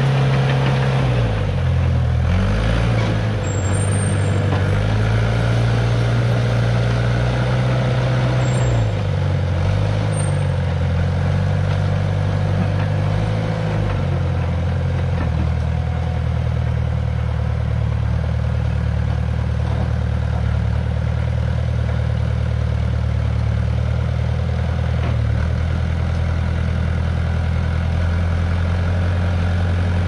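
Small crawler bulldozer's diesel engine running under load while grading dirt. Its note dips twice in the first ten seconds, then holds steady.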